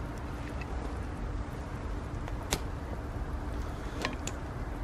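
A metal ladle clicking and knocking against a cast-iron Dutch oven as stew is served out of it: a few sharp clicks, the loudest about two and a half seconds in, over a low steady rumble.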